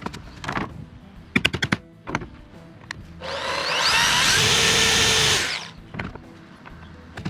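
Power drill boring a hole through a plastic console lid: one run of about two and a half seconds near the middle, its pitch rising as it spins up, with a few sharp clicks before it.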